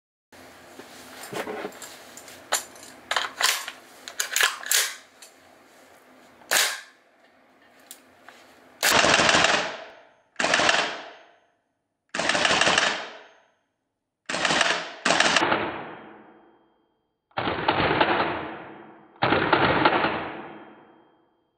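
WE-Tech XM177 gas blowback airsoft rifle. First comes a string of sharp clicks and snaps, then six shots heard in slow motion, each stretched into a long blast that fades away over about a second and a half.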